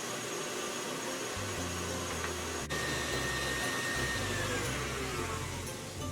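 Electric mixer running steadily, whipping chilled all-purpose cream with condensed milk. A high whine joins a little under halfway through and falls in pitch near the end.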